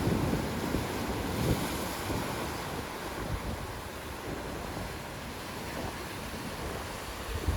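Steady rushing noise with a low rumble, dipping a little in the middle, of the kind made by wind or surf.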